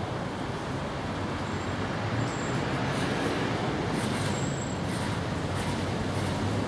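Steady rumbling background noise with an even hiss, and a few faint, short high tones.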